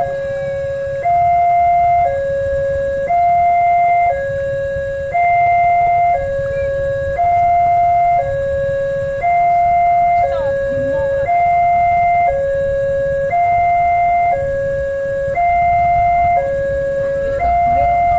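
Railway level crossing warning alarm sounding its electronic two-tone signal, a higher and a lower tone alternating about once a second, warning that a train is approaching and the barriers are down.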